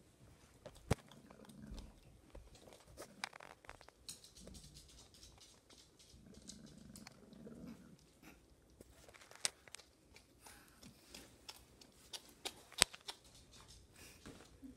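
Puppy gnawing on a chew bone: faint crunching and a few sharp clicks of teeth on the bone, with a low growl now and then.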